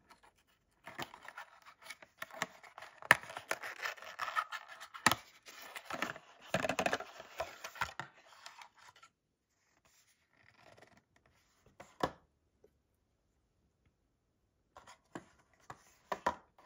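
Cardboard carton being opened by hand: its flap scraping and rubbing, with a few sharp clicks, as a plastic paste syringe is slid out. After about eight seconds it goes mostly quiet, with a few light knocks of the syringe and box being handled.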